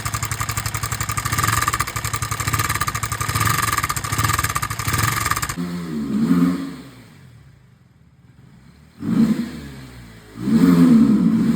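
KTM 250 Duke's single-cylinder engine running at a fast, even idle, cutting off about five and a half seconds in. After a near-quiet gap come shorter sounds that rise and fall in pitch.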